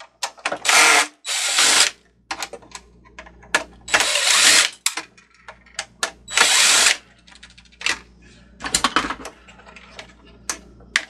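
Cordless DeWalt driver running in four short bursts of half a second to a second, then a weaker one near the end, backing out the screws that hold a small board in a plastic housing. Light clicks of plastic parts being handled come between the bursts.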